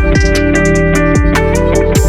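Background music: plucked guitar-like notes over a steady electronic beat with a deep kick drum.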